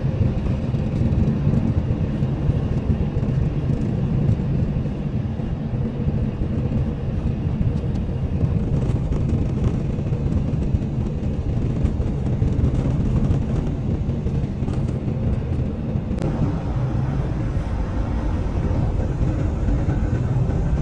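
Vehicle driving on a highway: steady engine and road noise, heaviest in the low end, with a slight change in its texture about sixteen seconds in.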